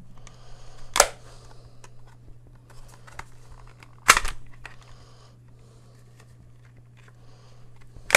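Sharp plastic snaps and clicks from a photo printer's translucent plastic paper tray being handled and its lid opened. There are loud snaps about a second in, about four seconds in and again at the very end, with lighter clicks and rattling between, over a steady low hum.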